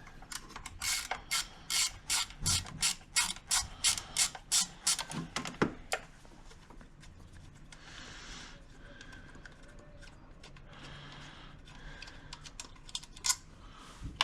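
Socket ratchet clicking in a quick steady run, about three clicks a second, as it is worked back and forth on the ignition coil's mounting bolts. The clicking stops about six seconds in, giving way to faint handling sounds, and a few more clicks come near the end.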